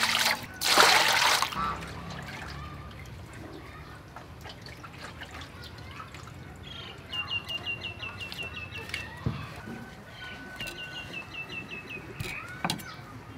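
Water splashing as a beef kidney is rinsed by hand in a metal bowl, loudest in the first second and a half, then light drips. Later a bird gives two quick runs of high chirps, with a single chirp near the end.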